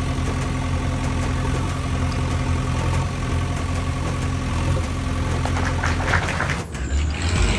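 An engine idling steadily, with a low, even hum that changes abruptly near the end.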